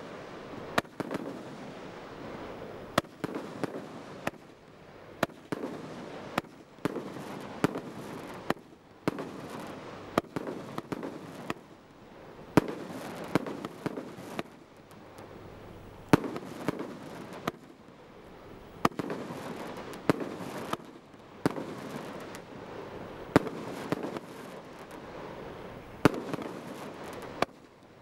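Bright Star 'Satanic Desecration' 200-shot barrage firework cake firing: a sharp bang roughly every second, irregularly spaced, with a continuous noisy rush of bursting shots between them.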